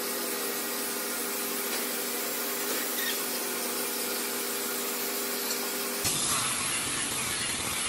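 Electric power sanders running on a Siamese rosewood (cẩm lai) slab: a steady motor whine with the hiss of abrasive on wood. About six seconds in the sound changes abruptly to a rougher noise with more low rumble.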